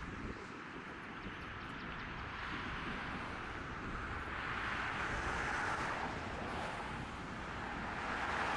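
Distant vehicle noise: a steady rushing sound that swells about halfway through, eases, then builds again near the end.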